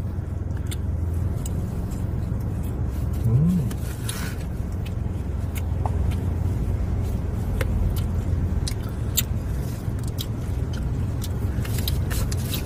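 Steady low hum in a car's cabin, with scattered small clicks and crunches of eating with plastic utensils and cups. A short hummed voice sound comes about three seconds in.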